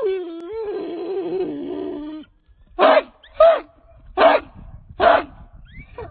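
American Pit Bull Terrier howling: a long wavering howl that falls in pitch and ends about two seconds in, followed by four short barks less than a second apart.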